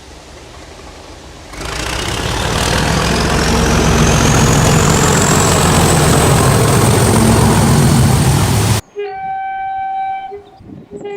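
A train going by close and loud, a rushing roar with a deep rumble and a high whine that climbs over several seconds, cut off suddenly. Then a multi-note train horn sounds a steady chord for about two seconds, breaking up near the end.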